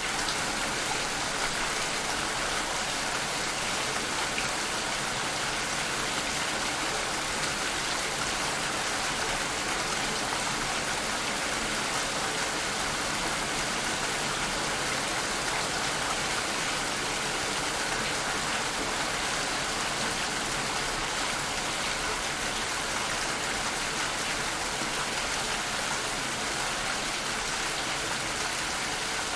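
Steady rain falling, a continuous even hiss of raindrops with no pauses or thunder.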